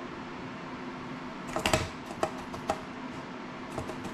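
Small clicks and taps of hands handling a small drone frame and hand tools on a work table. They begin about halfway through as a quick cluster, followed by a few single taps, over a steady low hum.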